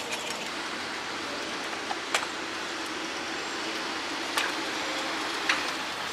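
Steady outdoor traffic noise with a faint low engine hum, broken by three sharp clicks about two, four and five and a half seconds in.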